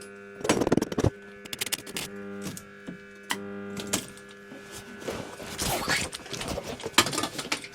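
Stick (arc) welder striking and crackling in short stop-start runs on steel, with a longer stretch of crackle about five seconds in. Background music with steady held notes runs underneath.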